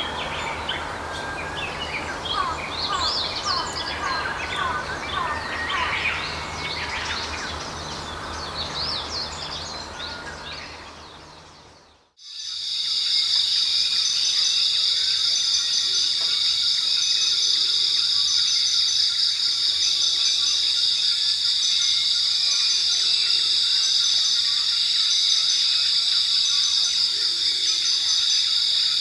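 A forest chorus of many songbirds chirping and calling over a low steady hum fades out about twelve seconds in. It gives way to a steady, dense insect chorus: continuous high chirring like crickets at night.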